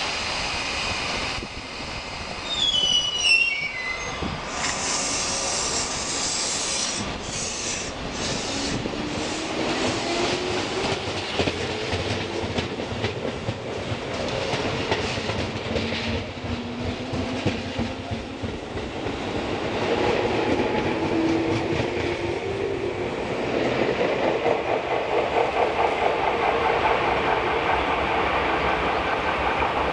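Tobu 6050 series electric train pulling out of a station. A short falling series of tones and a hiss of air come first, then the traction motors' whine rises slowly as the train gathers speed, and the wheels clatter over the rail joints as the cars run past.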